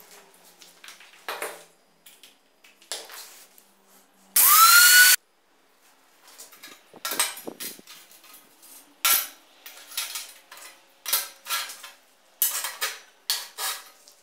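Cut steel plate pieces clinking and clattering as they are handled and set down on a steel workbench, a string of sharp metallic knocks that comes thicker in the second half. A little over four seconds in, a loud metallic screech with a rising pitch lasts about a second and cuts off suddenly.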